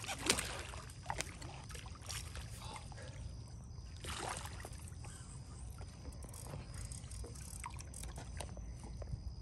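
Water splashing at the surface as a hooked alligator gar thrashes, two short splashes right at the start and about four seconds in, over a steady low rumble.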